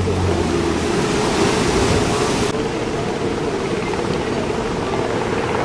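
Heavy ocean surf rushing, with wind on the microphone. A low engine hum, like a nearby boat motor, stops about a second in.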